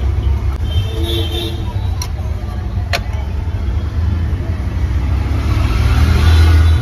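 Steady low rumble of street traffic, with faint voices and two sharp clicks about two and three seconds in.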